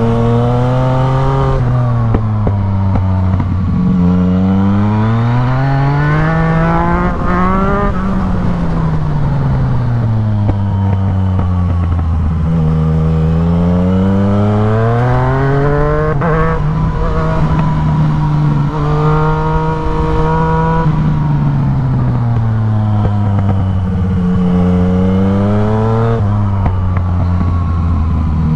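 Yamaha MT-09's three-cylinder engine through a full aftermarket Black Widow exhaust, revving hard and easing off again several times as the bike accelerates up through the gears and slows for bends, its pitch rising and falling in long sweeps.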